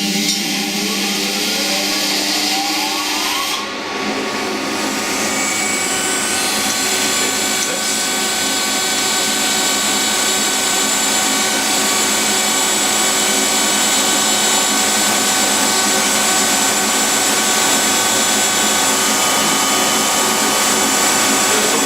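Metal lathe starting up: its motor whine rises in pitch for about the first three and a half seconds as the spindle comes up to speed, then the lathe runs on at a steady speed with a constant whine.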